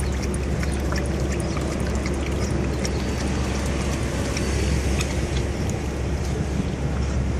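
Boxer dog lapping water from a plastic bag held open on the floor, a quick series of wet slurps and clicks, over a steady low rumble.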